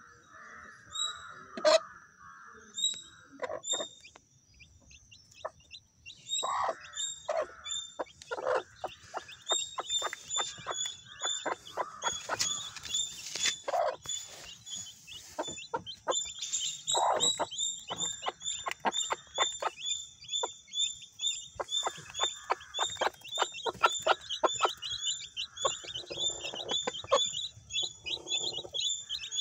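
Newly hatched chicks peeping, a stream of short high peeps that grows busier from about ten seconds in, with the broody hen's short low clucks among them.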